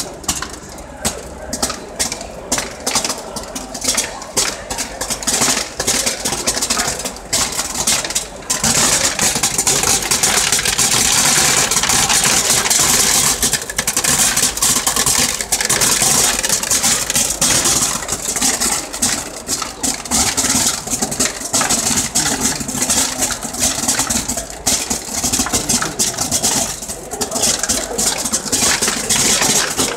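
TAIHO optical colour sorter running with plastic flakes pouring down its chute and rattling into a plastic bin: rapid clicks over a hiss, growing into a dense, steady hiss after about eight seconds.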